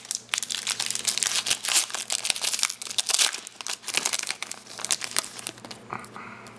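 A foil trading-card pack wrapper torn open and peeled back by hand: a dense run of crinkling and tearing that dies down about five and a half seconds in.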